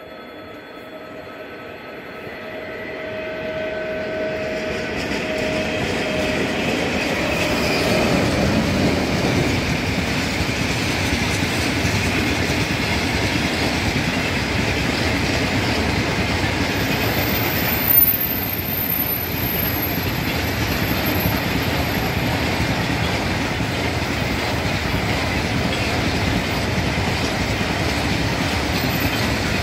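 A freight train of covered hopper cars passes close by. Its rumble and the clickety-clack of its wheels over the rail joints build up over the first several seconds and then carry on steadily. A little past halfway the wheels give a brief high squeal, with one sharp knock.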